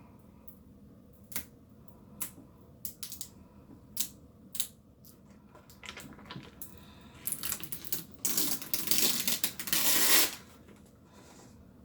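Vinyl decal's transfer sheet being peeled off a curved surface: a few light clicks and taps, then about three seconds of loud crackling as the sheet comes away.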